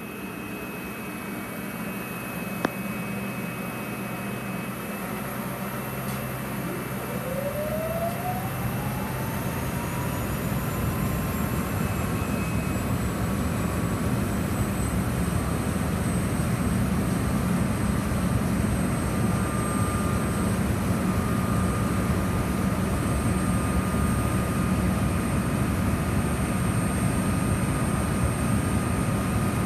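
EF65 electric locomotive's cooling blowers spinning up: a whine that rises in pitch over several seconds and then settles into a steady whirring hum that grows louder. A single sharp click comes a few seconds in.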